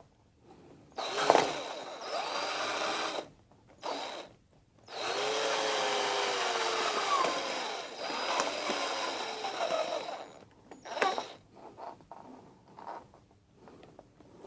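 Small handheld power tool running in several bursts, its pitch sagging and recovering as it works. The longest run lasts about five seconds.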